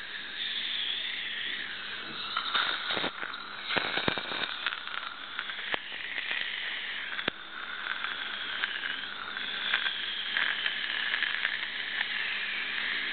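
Dental saliva ejector sucking air with a steady hiss, with crackles and clicks of fluid being drawn up the tube, thickest from about two to five seconds in.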